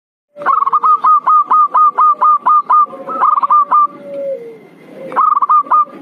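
Zebra dove (perkutut) lure-call recording: a rapid run of short clipped cooing notes, about five a second, then a lower drawn-out note falling away, and another short run of notes near the end.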